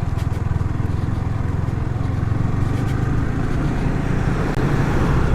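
Yamaha R15 motorcycle's single-cylinder engine running steadily while riding a loose, dusty dirt road, getting a little louder toward the end.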